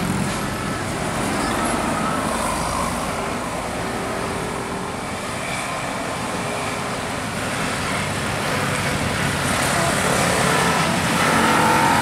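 Road traffic passing close by: a bus, cars and motorcycles coming round a bend, a steady mix of engine and tyre noise that grows louder near the end.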